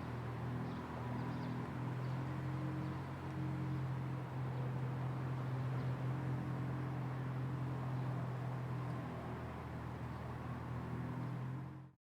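Outdoor parking lot ambience near a busy street: a steady low hum of vehicle engines and traffic, with a few faint high chirps in the first few seconds. It fades out abruptly near the end.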